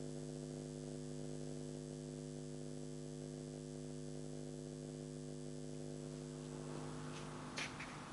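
Steady electrical hum with several overtones on a video-call audio line, low in level. It fades near the end, when a few faint clicks and rustles come in.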